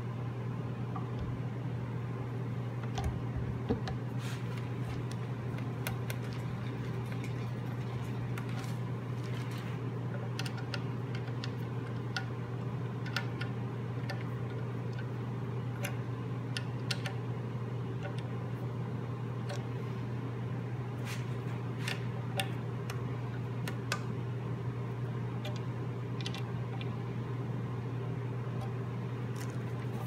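Steady low hum of a small room, with scattered light clicks and taps as small hardware and a hex key are handled at the wooden joint.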